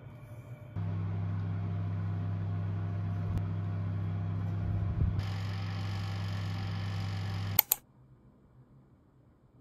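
Toaster oven running with a steady electrical hum, joined by a hiss about five seconds in. It shuts off with a sharp click near the end.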